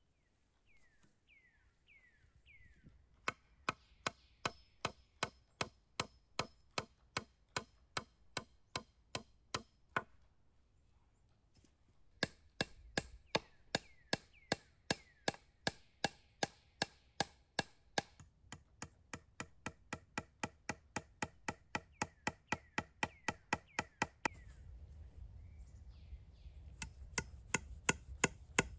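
Hatchet striking willow poles in quick, even blows, about two to three a second, in runs broken by short pauses; the last run, near the end, is louder.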